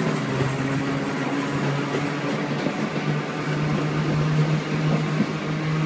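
Glasgow single-deck electric tram running along its track, a steady low hum over an even rumble and rush from the wheels and running gear.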